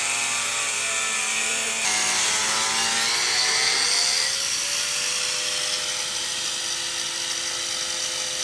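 Corded angle grinder with a thin cut-off wheel running at speed and grinding along a metal edge, a steady high whine over a hiss. Its pitch shifts about two to four seconds in as the load on the wheel changes, then holds steady.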